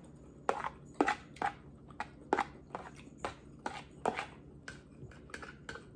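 A person chewing a mouthful of noodles with mouth smacks: a run of short, sharp clicks, irregular, about two or three a second.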